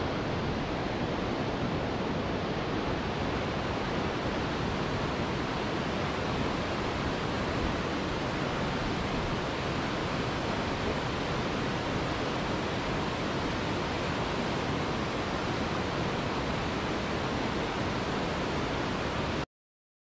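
Steady, even rush of falling water from a large waterfall, which cuts off suddenly near the end.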